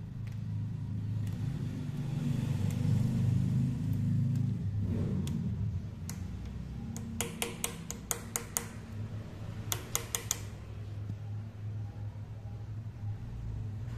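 Sharp metallic taps of a steel punch worked against a broken bolt stub to turn it out: a quick run of about eight a little after halfway, then five more in quick succession, over a steady low hum.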